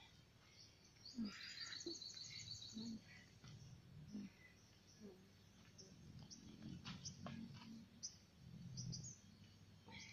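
Faint outdoor ambience with birds: a quick high trill of rapidly repeated notes about a second in, then scattered short high chirps.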